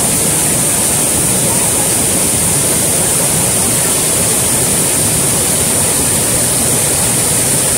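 Water pouring over the curved spillway of a reservoir tank, a loud, steady rush.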